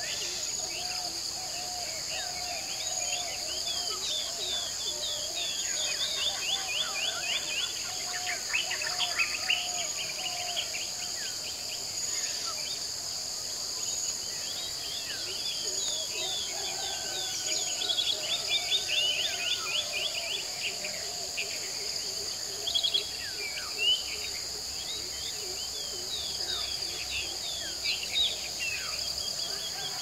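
Lakeside night chorus of crickets and frogs. Insects shrill steadily in two high bands under repeated bursts of quick chirping calls and a lower warbling chorus. A few louder calls stand out around the middle and near the end.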